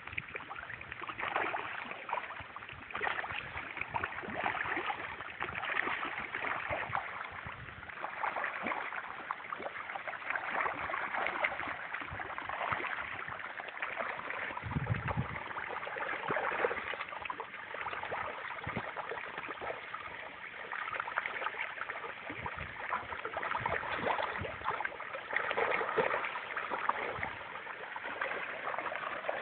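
Catfish feeding at the surface of a pond: continuous, crackly splashing of water.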